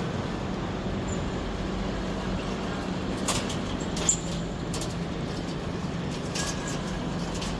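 Busy railway station ambience: a steady low hum and general background noise, with a few sharp clicks or knocks about three and four seconds in.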